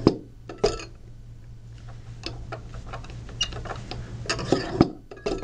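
A steel ball drops onto the rod of an Airpot pneumatic snubber and hits with a click, followed by light, irregular ticks as it bounces on the air column. The damping is set too high, so the air cannot escape fast enough. There are a few louder clacks near the end.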